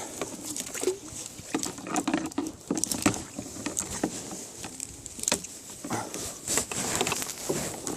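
Irregular clicks, knocks and rustling with no steady rhythm.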